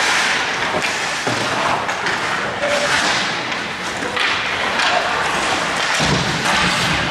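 Ice hockey being played in an echoing indoor rink: skates scraping the ice, stick and puck knocks, and thuds against the boards, with scattered voices. A heavier low thud comes about six seconds in.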